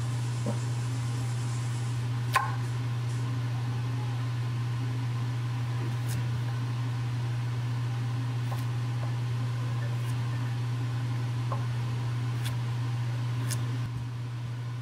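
Chef's knife cutting carrots on a thick wooden cutting board: scattered sharp knocks several seconds apart, the loudest about two seconds in. Under them is a steady low hum from a running kitchen appliance.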